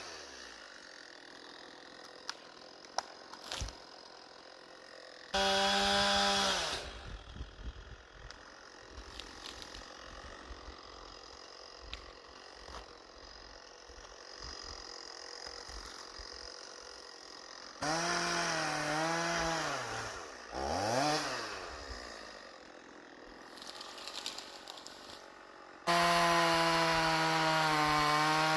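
Chainsaw revved hard in three bursts: a short one about five seconds in, a longer one near eighteen seconds whose pitch sags and recovers twice, and a steady full-throttle run from about twenty-six seconds on. Quieter stretches lie between the bursts.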